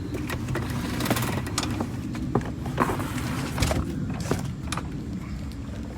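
Unboxing handling noises: scattered clicks, knocks and rustling of packaging over a steady low rumble.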